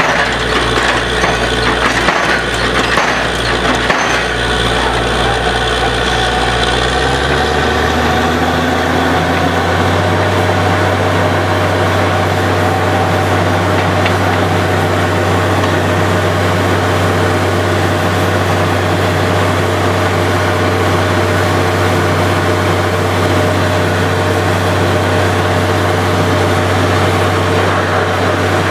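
Truck-mounted borewell drilling rig running under a steady, loud engine drone, with a few knocks in the first seconds. About seven to ten seconds in, the engine speeds up and settles at a higher steady pitch as the drilling goes on, with air blowing muddy water and cuttings out of the bore.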